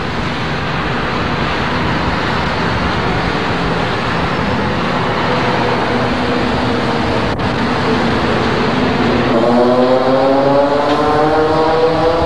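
CART Indy cars running on a wet track: a steady hiss of spray and engine noise. From about nine seconds in, one engine climbs steadily in pitch as a car accelerates.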